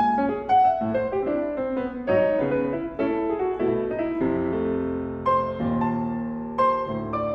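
Steinway piano played solo in a jazz style: quick runs of notes over chords, then from about four seconds in slower, held chords with single notes struck over them.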